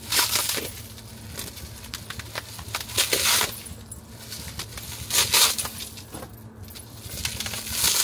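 A package being opened by hand: wrapping rustles and tears in four short bursts, with small crinkles and clicks between them.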